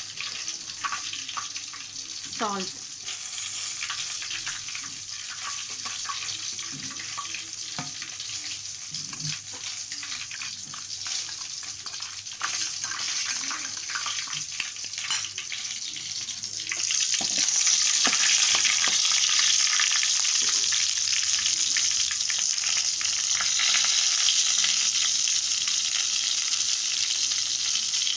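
Chicken legs shallow-frying in a pan of hot oil: a steady sizzle dotted with crackling pops. About two-thirds of the way through the sizzle turns clearly louder and stays so.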